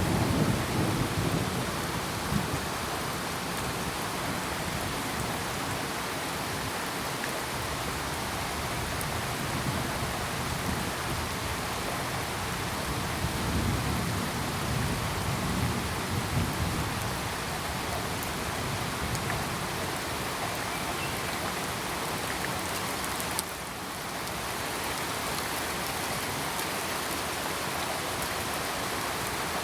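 Steady heavy rain falling, with low rumbles of thunder near the start and again about halfway through.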